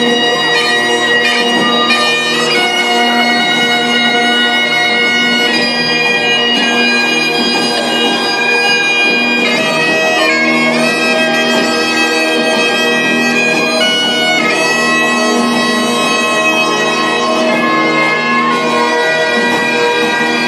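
Bagpipes playing a tune, the melody notes shifting over a steady, unbroken drone.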